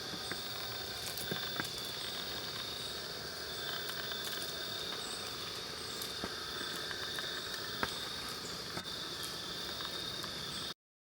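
Crickets chirping in a steady high trill, with a few faint clicks, until the sound cuts off suddenly near the end.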